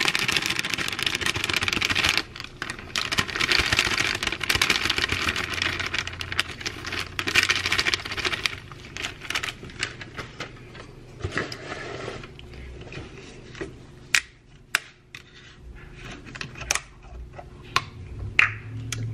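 A plastic bag of dry baking mix crinkling as it is shaken empty into a stainless steel bowl: a dense crackling rustle. After about nine seconds this gives way to scattered clicks and taps of kitchen things being handled and set down.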